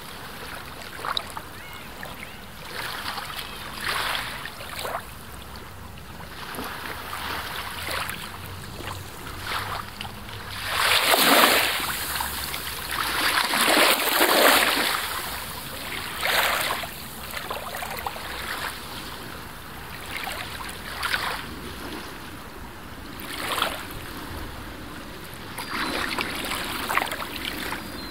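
Outdoor wind and water noise: a steady rushing with small waves, swelling louder twice around the middle in gusts.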